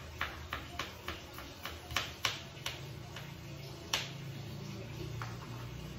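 Kitchen knife chopping shallots on a small plastic cutting board: quick knocks about four a second for the first two and a half seconds, then a few single knocks, the loudest about four seconds in.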